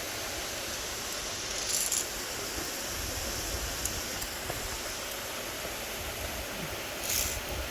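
Steady rushing of a mountain stream's waterfall close by, with brief rustling twice, about two seconds in and near the end.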